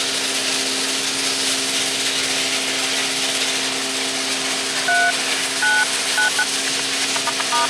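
A steady engine hum with broad hiss runs throughout. About five seconds in, a phone keypad gives a series of short dialing beeps: a few spaced presses, then a quicker cluster near the end.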